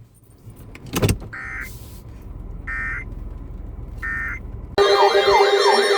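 Emergency Alert System end-of-message code: three short rasping data bursts, each about a third of a second long and about 1.3 seconds apart, after a click. Near the end a loud siren-like sound starts abruptly, warbling, with repeated rising sweeps.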